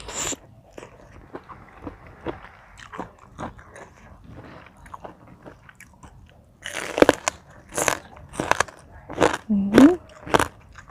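A person eating spicy seafood papaya salad close to the microphone: soft wet chewing clicks at first, then a run of loud, crisp crunching bites about two-thirds of the way in, with a short hum of a voice among them near the end.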